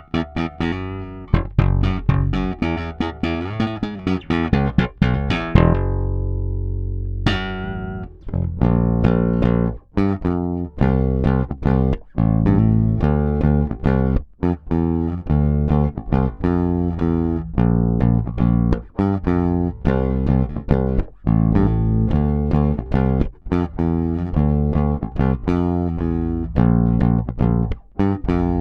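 Bass guitar played solo, a run of plucked notes with a deep low end. About six seconds in, one note is held and rings out, its brightness fading, before the quick playing starts again.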